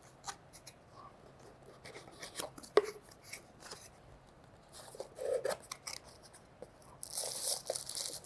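Small cardboard box opened by hand: scattered light taps, clicks and scrapes of the flaps, the sharpest a little under 3 seconds in. Near the end comes a stretch of rustling, as the plastic wrap inside is handled.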